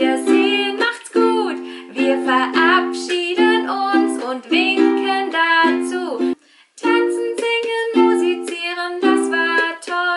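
Ukulele strummed in chords, with a woman's singing voice over it in places; the strumming stops briefly about six seconds in, then starts again.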